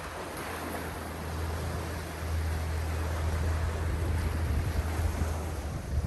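Sea waves washing onto the shore, with wind rumbling on the microphone; the wash grows louder about two seconds in.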